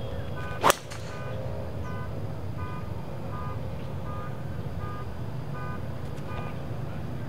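A driver striking a golf ball off the tee: one sharp crack less than a second in. Behind it, a faint electronic beep repeats about every three quarters of a second over a steady low rumble.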